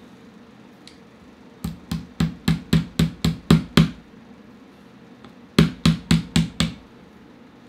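A small hammer taps the barrel retaining pin back into a Walther Rotex RM8 air rifle's action, metal on metal, with sharp even strikes. There are two runs: about nine taps at roughly four a second, then after a short pause five more.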